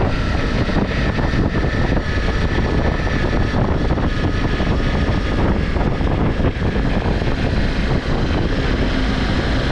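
Ducati Multistrada V4 Pikes Peak's V4 engine running steadily through its stock exhaust, a continuous drone with a faint high whine that drifts slightly lower in pitch.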